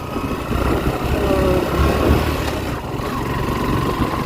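Suzuki GSX-R150 motorcycle's single-cylinder engine running steadily while the bike rides a rough off-road track.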